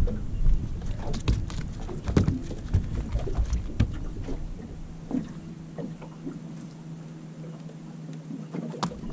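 Handling a freshly landed tailor and its lure in a small boat: scattered knocks and taps, busiest in the first half. A steady low hum comes in from about halfway and stops just before the end.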